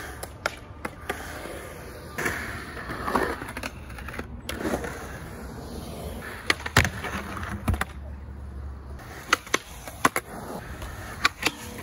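Skateboard rolling on concrete, a steady rumble of hard wheels broken by several sharp clacks as the board strikes the ground.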